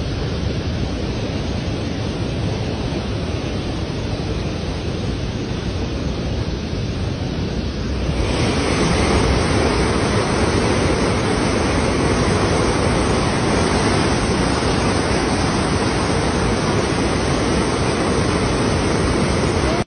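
Brown floodwater rushing down a river in spate, a steady noise that is low and dull at first. About eight seconds in it turns suddenly louder and brighter, the sound of the churning rapids heard close up.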